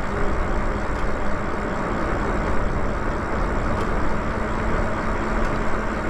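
Riding noise from a Lyric Graffiti electric bike in motion: wind buffeting the handlebar-mounted microphone and tyres rolling on asphalt, with a steady low hum underneath.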